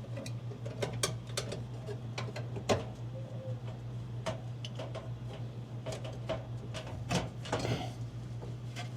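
Irregular small clicks and taps as the Torx bit of a Swiss Army knife works screws out of a metal dryer motor bracket, over a steady low hum.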